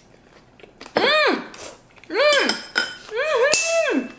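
Three drawn-out 'mmm' hums of pleasure from a person chewing food, each rising then falling in pitch, starting about a second in. Near the end there is a sharp click and a short, thin high tone.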